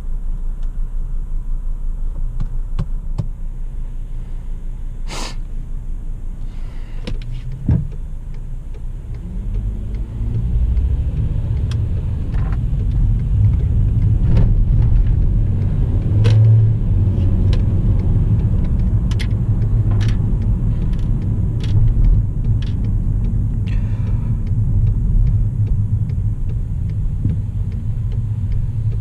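Car driving along: a steady low rumble that grows louder about ten seconds in, with scattered clicks and knocks on top.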